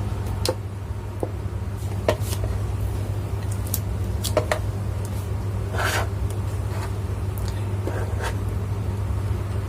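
A few sharp clicks and knocks from a circuit breaker and switch being handled and switched on, over a steady low hum.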